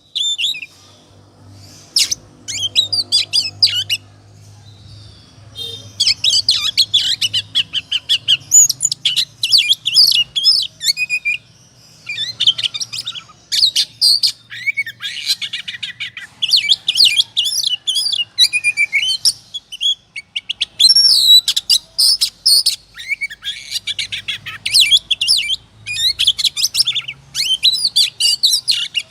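Oriental magpie-robin (kacer) singing a loud, fast, varied song of whistles and chattering notes in long bursts with brief pauses. This is the excited, worked-up 'ngobra' singing that kacer keepers play to provoke other birds into singing.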